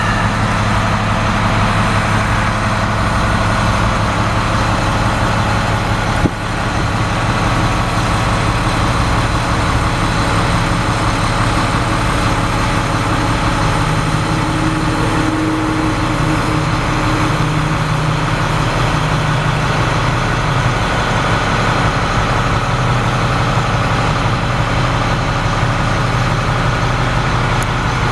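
International DT466 inline-six diesel engine idling steadily at about 700 rpm, heard from inside the truck's cab. There is a single short click about six seconds in.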